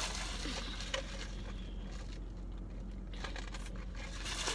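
Soft sipping through a straw and light handling of a large paper fast-food cup, with faint rustling and a small click about a second in, over a steady low hum.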